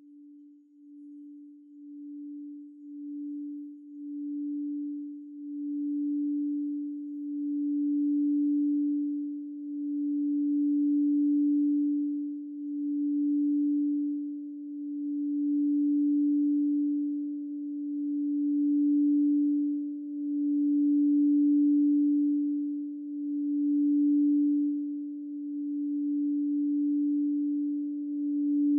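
8-inch clear crystal singing bowl, the Alchemy D-20 Platinum pitched at D, sung by circling a wand around its rim. One steady pure tone builds from faint over the first several seconds into a full sustained hum that swells and fades in slow waves every two to three seconds, with a faint higher overtone joining after about six seconds.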